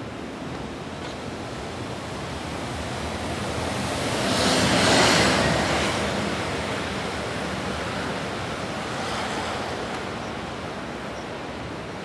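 Steady hiss of city traffic on rain-wet streets. A vehicle's tyres swish past on the wet road, swelling and fading about five seconds in, with a fainter one a few seconds later.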